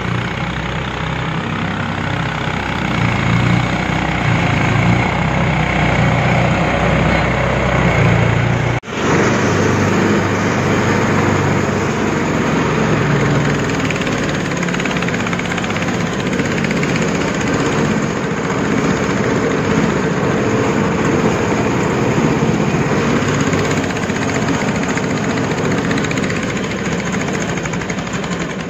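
The engine of a homemade skid-steer all-terrain vehicle running steadily. It breaks off for an instant about nine seconds in, then carries on with a coarser, noisier sound.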